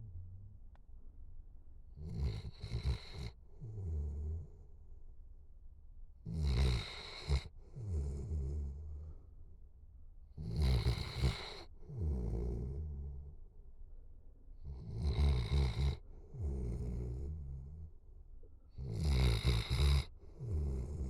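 A dog snoring in deep sleep: a loud snore about every four seconds, five in all, each followed by a softer snore.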